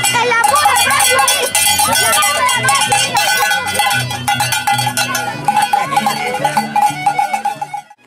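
Bells jangling continuously as a procession walks, with a steady ringing tone, the voices of the walkers and a low, changing melody underneath. The sound cuts off suddenly just before the end.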